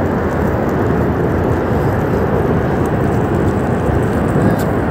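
Steady, loud rushing noise of a muddy debris flood surging down a river gorge after a glacier burst.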